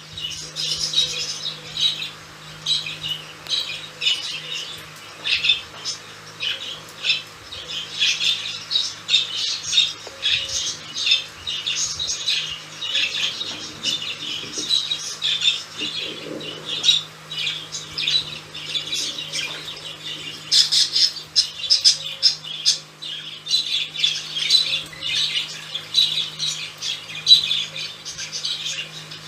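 Budgerigars chattering in their cage: an unbroken run of rapid, high chirps and calls, with a low steady hum underneath.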